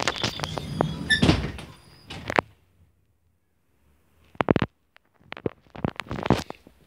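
Sharp knocks, clicks and clattering with some rustling as someone moves hurriedly about inside an abandoned railcar. The sounds break off into near silence a little before halfway, then a few more sharp knocks come near the end.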